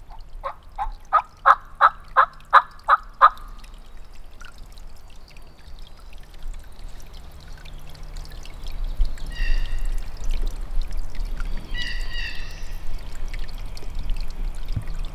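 Wild turkey calls: a series of about nine yelps, roughly three a second, growing louder over the first three seconds. Later come two short gobbles, at about a third and two-thirds of the way through. Water trickles faintly underneath.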